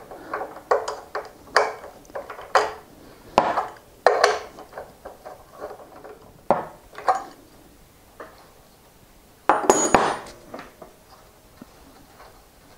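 Socket wrench working the axle nut of an electric unicycle's hub motor: a run of short, ringing metal clinks about every half second, then a louder metal clatter near the end as the wrench is put down on the bench.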